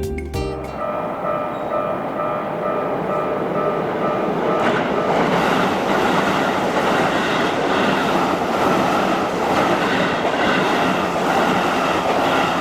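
Japanese railway level crossing warning bell ringing in a steady repeating on-off pattern. From about four and a half seconds in, an electric train passes over the crossing, its wheels rumbling and clattering on the rails under the bell.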